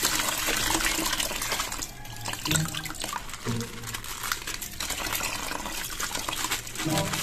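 Water pouring and splashing out of a cut-open plastic bag into a basin of water, with the wet plastic bag rustling as it is squeezed and emptied.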